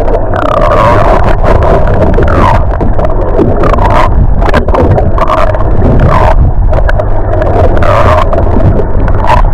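Motorboat running at speed: a loud, steady engine drone with wind buffeting the microphone.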